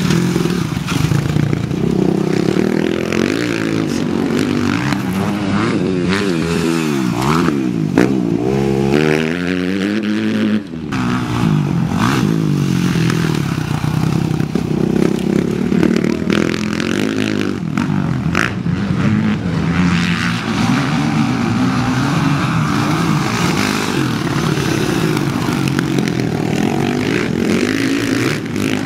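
Several motocross bikes' engines revving hard as they pass on the track, their pitch rising and falling with the throttle. Several engines overlap about six to ten seconds in, and the sound drops out briefly near eleven seconds.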